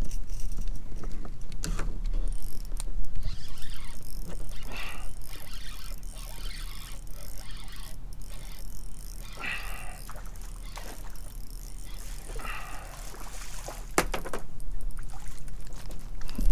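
An angler reeling a small fish in to a kayak on a spinning rod, with a steady low rumble of wind on the microphone. About fourteen seconds in there is a sharp knock, then louder noise as the fish is brought out of the water.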